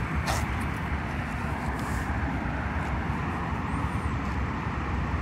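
Steady street traffic rumble at a road intersection, an even outdoor noise without distinct events.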